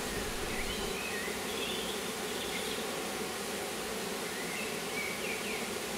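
Steady hum of a honeybee colony swarming over an opened hive, with a few faint high chirps above it.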